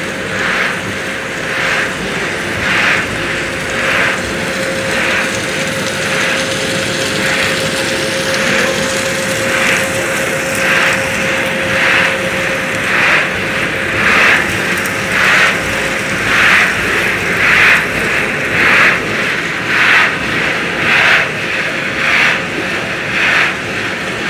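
Corn curl snack production machinery running: a steady mechanical drone with a thin steady whine, and a swishing that swells and fades about once a second.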